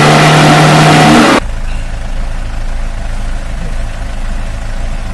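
Mahindra MM540 DP jeep's diesel engine revving hard with its pitch rising as it climbs a steep off-road bank. About a second and a half in it cuts off suddenly to a quieter, steady low engine hum heard from inside the cabin.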